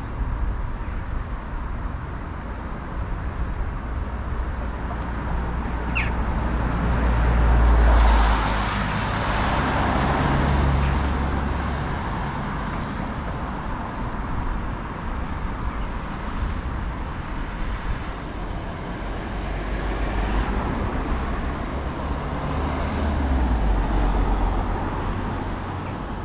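Road traffic passing on the bridge roadway beside the footpath, swelling louder about eight to eleven seconds in and again near the end, over a steady low rumble.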